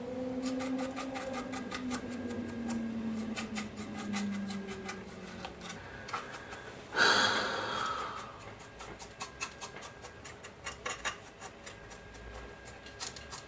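A flat paintbrush dabs and scratches over a plastic scale-model tank hull, making quick light clicks and rubbing. About seven seconds in, a short loud puff of breath hisses and fades.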